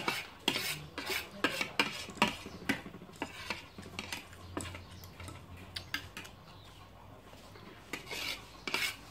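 Metal spoon and fork scraping and clinking against a plate, scooping up the last of the food, in quick irregular strokes that thin out midway and pick up again near the end.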